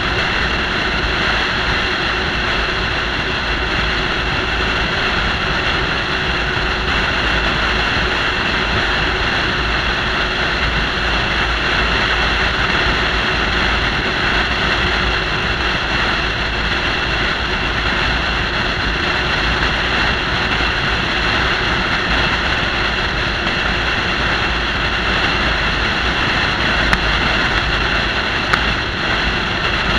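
Steady rush of wind and road noise at highway speed, heard on a camera mounted on a car's roof, with a deep rumble of wind buffeting underneath. A couple of brief ticks come near the end.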